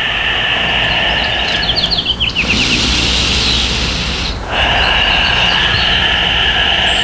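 Outdoor ambience: a steady high-pitched tone throughout, with a bird's quick descending trill about two seconds in, followed by a rush of hiss lasting about two seconds.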